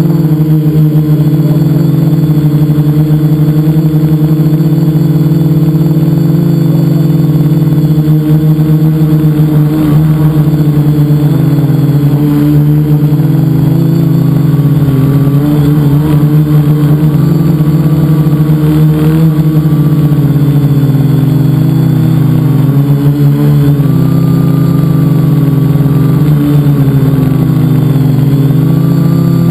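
Electric motors and propellers of a multicopter heard from a camera mounted on the craft itself, close up: a loud, steady hum of several pitches that wavers slightly up and down as the throttle changes in flight.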